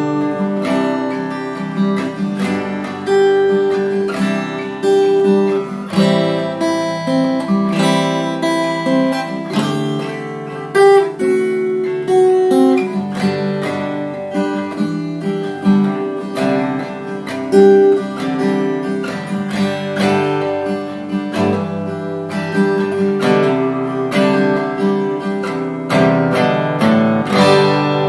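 Seagull Entourage Rustic steel-string acoustic guitar played solo, chords strummed and picked in a continuous progression with a steady rhythm.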